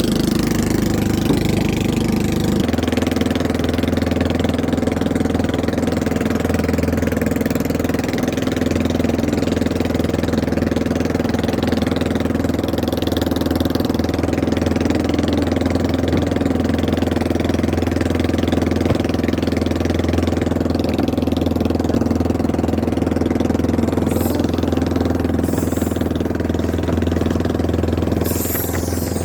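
Boat engine running steadily, its note shifting slightly about two and a half seconds in and then holding even.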